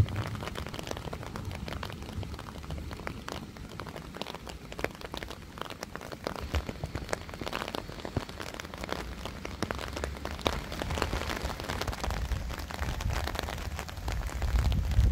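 Steady rain falling on wet ground and surfaces: a dense scatter of small drop ticks over a low rumble that swells near the end.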